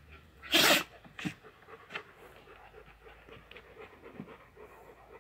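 Central Asian Shepherd Dog (Alabai) sneezing once, loudly, about half a second in, followed by two shorter, quieter huffs through the nose. The owners take the sneezing for a small hair caught in her nose.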